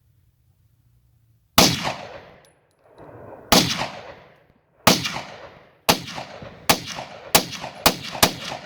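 Chinese-made 30 bore pistol (7.62×25mm Tokarev) fired eight times. The first shot comes about a second and a half in, the first few are spaced about two seconds apart and the later ones come quicker. Each shot has a long echoing tail.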